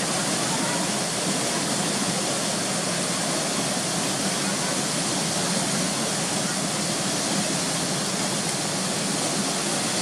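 Fast river water rushing through rapids: a steady, unbroken whitewater rush.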